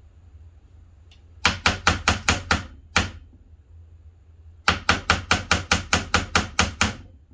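Sharp knocks in quick succession, about five a second: a run of six, a single knock, then a longer run of about eleven, as an old AirDog diesel lift pump is struck by hand. The pump stays dead under battery power.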